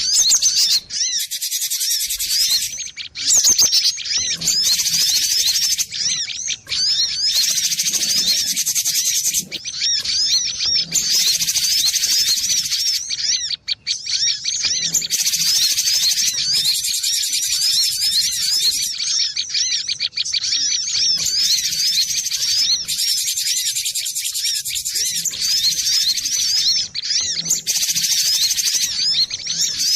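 Cinereous tit (gelatik batu) singing: a rapid, nearly unbroken stream of high, quickly repeated chirping notes with only brief pauses.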